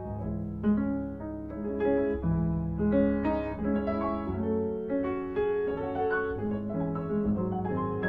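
Two pianos playing a classical piece together, read at sight on a first run-through: an unbroken flow of sustained chords and moving notes.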